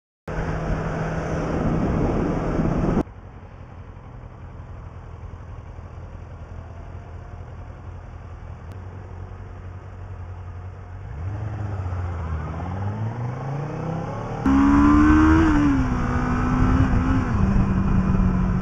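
Motorcycle engine and road noise from a helmet camera, across several cut-together clips. A loud stretch gives way to a quieter steady run. From about eleven seconds in, the engine revs up in rising steps as the bike pulls away, then settles into a steady tone.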